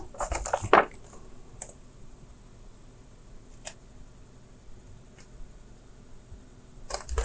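Paper rustling as a printed instruction booklet is handled, mostly in the first second, then a few faint isolated ticks in a quiet small room.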